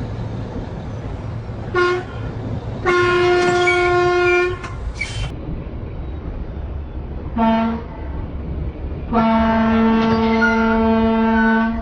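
Container truck's air horn sounding four times in warning: a short toot and a long blast, then a lower-pitched short toot and a long blast of about two and a half seconds. Steady engine and road noise underneath, with a brief hiss after the second blast.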